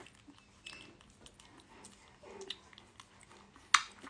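Soft wet clicks and smacking from a two-week-old puppy's mouth as it licks oral deworming syrup, with one sharp click near the end.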